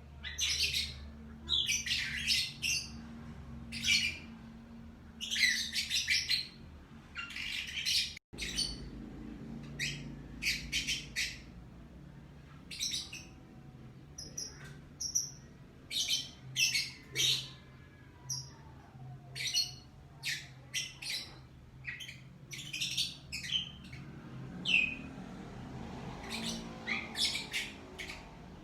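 Lovebird chirping: short high-pitched chirps in quick clusters, repeating about every second, over a faint low hum.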